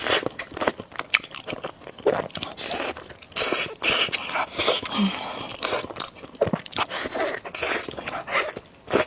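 Close-miked eating of spicy noodles: a dense run of wet chewing, biting and lip-smacking clicks, with several short hissing bursts.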